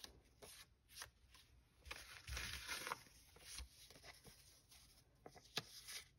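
Faint, scattered rustling and light ticks of thin paper sheets being handled and leafed through.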